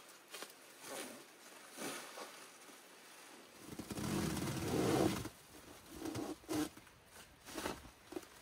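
Plastic stretch-wrap sheeting on a shelter's roof and walls rustling and crackling in the wind, with a stronger gust about four seconds in.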